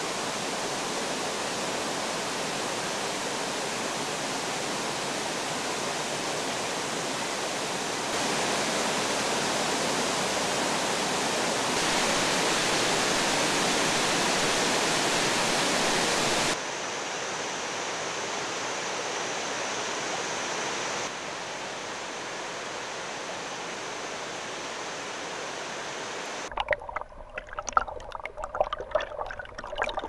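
Waterfall white water rushing in a steady, even hiss-like roar that jumps abruptly louder or quieter several times. Near the end it changes to irregular underwater gurgling and bubbling.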